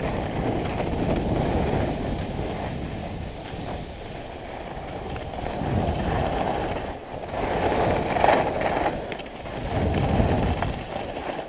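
Skis running down a groomed piste: the scrape and hiss of ski edges on packed snow, mixed with wind rushing over the action-camera microphone, swelling and easing in surges as the skier turns.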